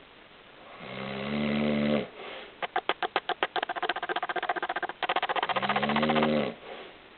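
A man snoring. A pitched snore comes about a second in, then a fast rattling flutter lasts a few seconds and runs into a second pitched snore near the end.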